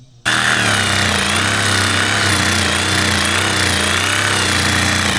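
Sawzall reciprocating saw starting suddenly and running steadily while cutting through the wooden concrete-form boards, with a high whine that wavers up and down.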